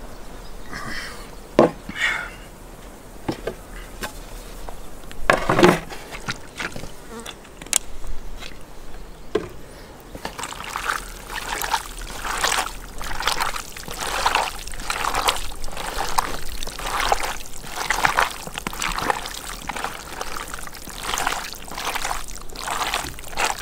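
Wet squelching of bare hands kneading and turning cut-up raw hearts in a plastic basin: a steady run of squishes, one every half second or so, starting about ten seconds in. Before that, a few scattered sharp knocks.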